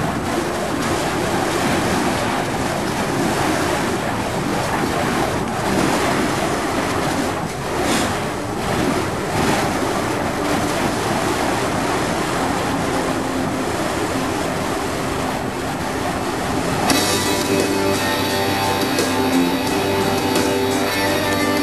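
A loud, even rushing noise drowns out everything until about three-quarters of the way through. Then rock music with guitar comes in clearly.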